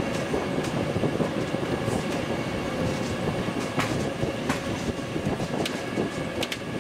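Electric passenger cart driving along a hard floor: a steady rolling rumble and rattle with a faint, even motor whine, and a few sharp clicks in the second half.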